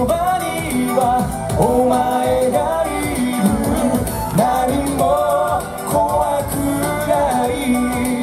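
Male vocalist singing a pop song live into a microphone, over band accompaniment.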